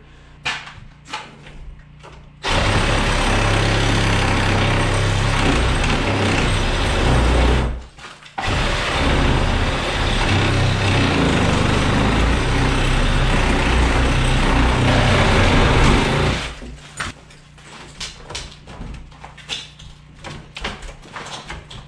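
A handheld cordless power tool running hard for about five seconds, stopping briefly, then running again for about eight seconds. Scattered knocks and rattles come before and after it.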